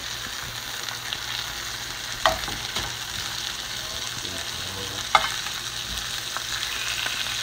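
Split sausages frying in a pan, sizzling with a steady hiss, while a slotted spatula turns them and knocks sharply against the pan twice, about two seconds in and again just after five seconds.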